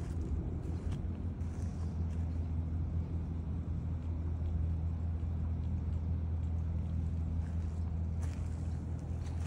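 Steady low mechanical hum, like an engine running at a constant speed, with a few faint short scuffs over it.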